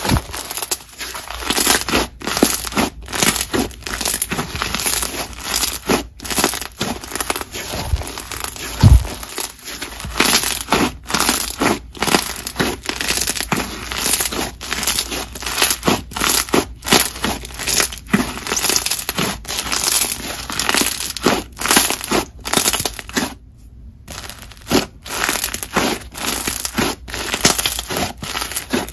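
Snow fizz slime (a glue-based snow fizz base mixed with clear water slime) being squeezed, stretched and folded by hand. It gives dense, irregular crunching and crackly bubble pops. There is one low thump about nine seconds in.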